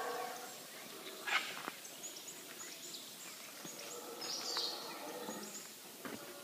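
The roaring of black howler monkeys dies away in the first moment, leaving quiet forest ambience with short high bird chirps and a few light clicks.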